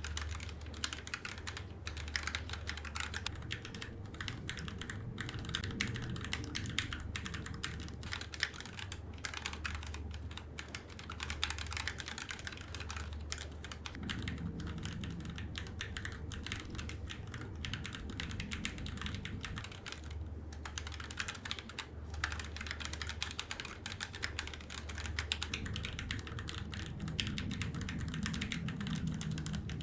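Continuous typing on a CNC aluminium KEMOVE 61 ARES keyboard fitted with Gateron Milky Yellow linear switches lubed with Krytox 205g0, a painter's-tape mod on the PCB and PBT cherry-profile keycaps: a steady, fast run of keystrokes.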